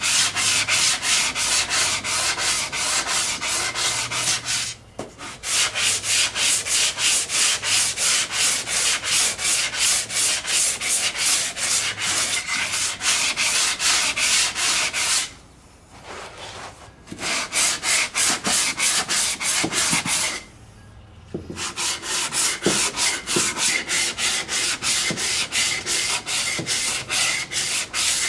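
Sandpaper on a wooden sanding block rubbed back and forth by hand over a Bondo body-filler skim coat, in quick even strokes about three a second, with three short pauses: final smoothing of the filler's contour.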